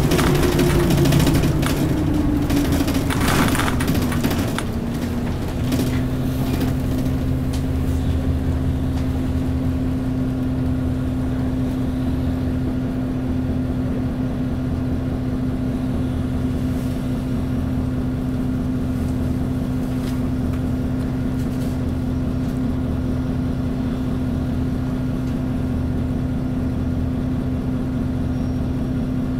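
V8 diesel engine of an Isuzu KC-LV380N city bus, heard from inside the cabin: the engine note falls as the bus slows over the first five seconds or so, then it idles steadily with a low pulsing hum while standing still.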